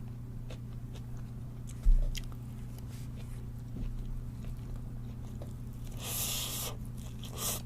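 A person chewing a mouthful of stir-fried bean sprouts, dried tofu and pork, with soft mouth clicks, a low thump about two seconds in and two short crunchy bursts near the end, over a steady low hum.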